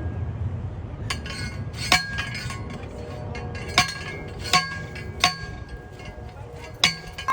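A metal object struck six times at uneven intervals, each strike a sharp clink that rings on at the same pitches.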